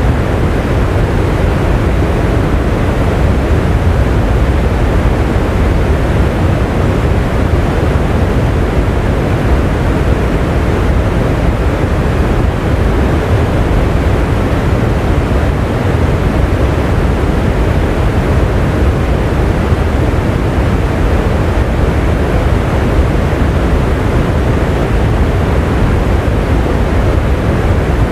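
Steady rain: an even, unbroken wash of noise, strongest in the deep low end.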